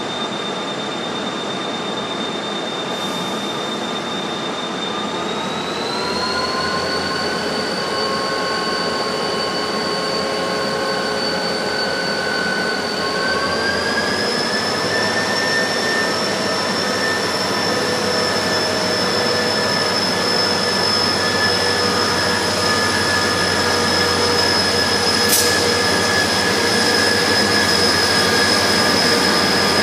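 Korail Class 7300 diesel-electric locomotive pulling a passenger train away at low speed. Its engine runs with a steady high whine that steps up in pitch twice, about five and about thirteen seconds in, as the throttle is notched up. The sound grows slowly louder as the locomotive comes closer, and there is a single sharp click about 25 seconds in.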